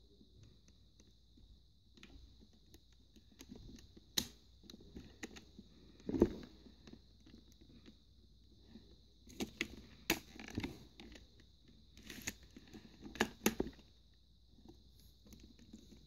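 Plastic Lego Technic parts of a Lego pistol clicking and knocking as it is handled: scattered sharp clicks, the loudest about six seconds in, with several more in quick succession later, over a faint steady hiss.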